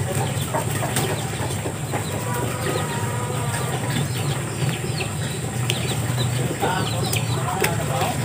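Barnyard fowl calling in a pen: short clucks and high chirps scattered throughout, with a flutter of wings, over a steady low hum.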